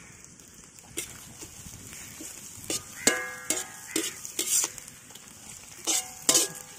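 Sliced onions, green chillies and garlic sizzling in a black iron kadai. A metal slotted spatula stirs and scrapes them, knocking against the pan several times, and the iron rings briefly after the louder knocks.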